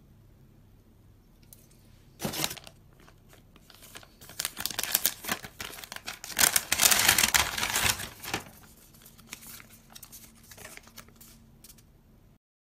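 Crumpled kraft packing paper rustling and crinkling as hands dig through a cardboard shipping box. It starts about two seconds in with a sharp rustle, grows loudest midway, then thins to a few light rustles before cutting off.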